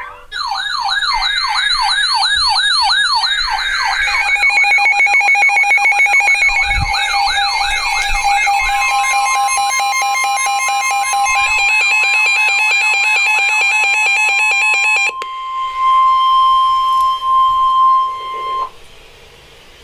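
Electronic alert siren sweeping up and down, switching to a faster warble about four seconds in and cutting off at about fifteen seconds. About nine seconds in, the steady single-pitched NOAA Weather Radio warning alarm tone joins and carries on for about ten seconds before stopping.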